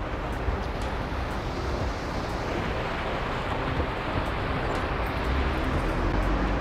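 City street traffic noise, a steady rumble with wind buffeting the microphone, swelling slightly near the end.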